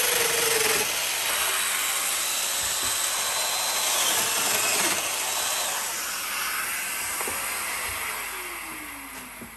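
Festool Domino DF 500 Q joiner running as it cuts mortises into the ends of small wood pieces. Near the end the motor is switched off and winds down with a falling whine.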